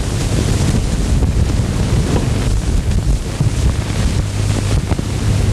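Steady hiss and low hum of a worn 1930s optical film soundtrack, with a few faint clicks.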